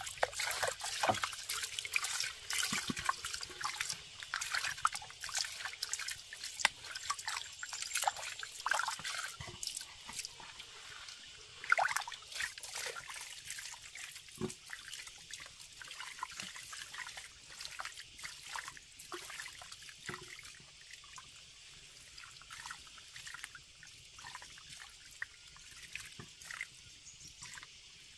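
Hands scrubbing and rinsing sweet potatoes in a plastic basin of water: splashing, sloshing and dripping, busiest in the first half and thinning out later.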